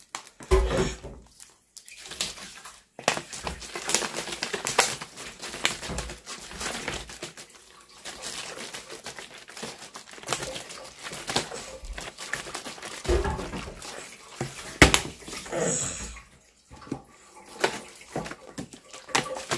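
Plastic water bottle being handled and crinkled close to the microphone, with many sharp crackles and knocks, over water running at the kitchen sink.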